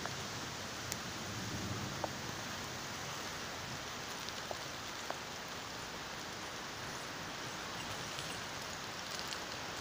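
Steady rain falling: an even hiss, with a handful of sharp single ticks of drops striking close by.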